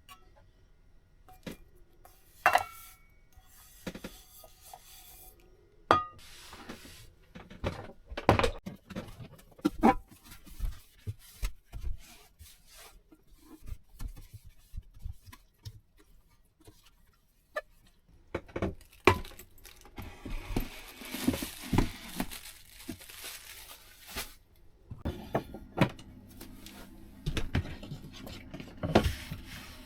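Dishes and utensils being handled and put away: scattered knocks and clinks, one of them ringing briefly about two seconds in, with a few seconds of rustling like packaging or paper being crumpled partway through.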